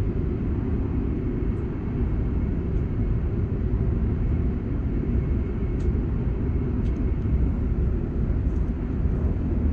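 Steady low rumble of a Joetsu Shinkansen train running at speed, heard from inside the passenger car, with a couple of faint light ticks in the middle.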